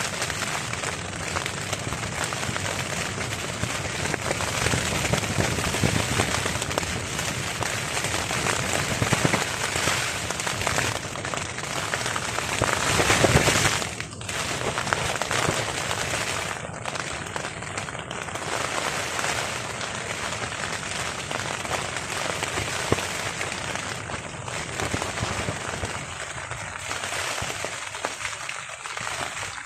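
Steady rain pattering on a tarp overhead, a dense crackle of drops. About halfway through it swells louder for a couple of seconds, then drops back suddenly.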